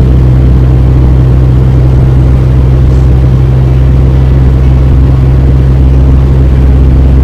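Suzuki JB23 Jimny's 660 cc three-cylinder turbo engine running at a steady, even speed with a loud low drone.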